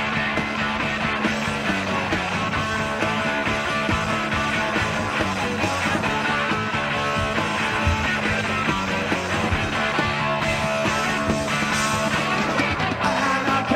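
Punk rock band playing live through an instrumental stretch without vocals: guitar, bass and drums keep going at an even loudness.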